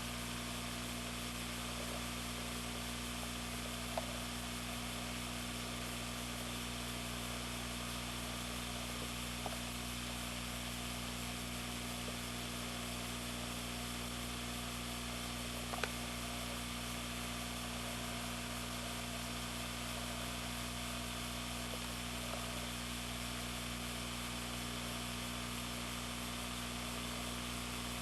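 Steady hiss with a low electrical hum under it, and a couple of faint clicks about 4 and 16 seconds in.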